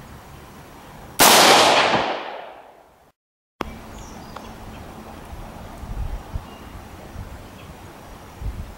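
A single AR-15 rifle shot about a second in, its report echoing and fading away over nearly two seconds.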